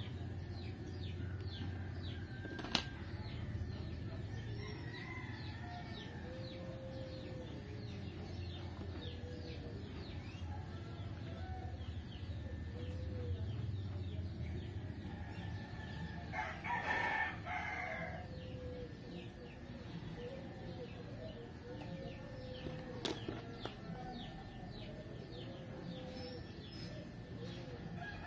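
Birds calling in the background: a steady stream of short, high, falling chirps mixed with lower clucking calls, and one louder call about 17 seconds in. Two sharp clicks stand out, one about three seconds in and one later on.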